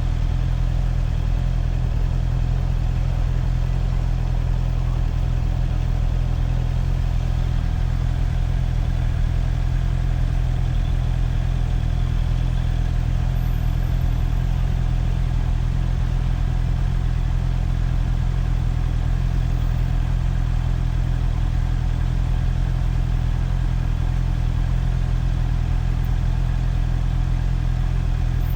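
Motorcycle engine running at a steady low idle, an even, unchanging hum with no revving.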